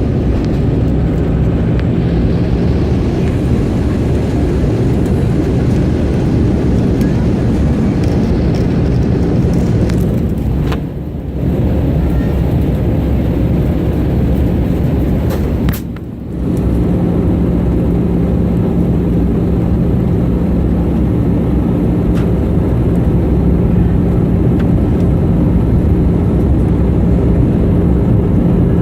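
Steady in-flight cabin noise of an Airbus A320, airflow and engine drone with a steady low hum, dipping briefly twice.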